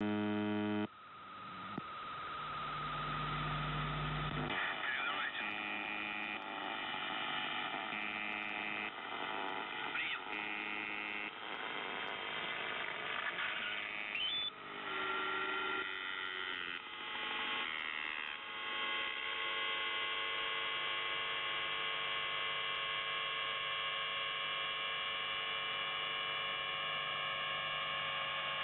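Shortwave receiver audio from the Russian 'Buzzer' station, UVB-76, on 4625 kHz upper sideband. Its buzz cuts off about a second in, shifting tones and a brief rising whistle follow, and from about 19 seconds a steady electrical hum holds.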